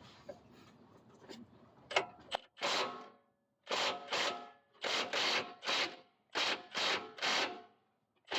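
Hand ratchet clicking through its pawl in a series of short rasping strokes, mostly in pairs about two a second, starting a couple of seconds in. It is set to the wrong direction, so it ratchets freely instead of holding the 19 mm bolt head.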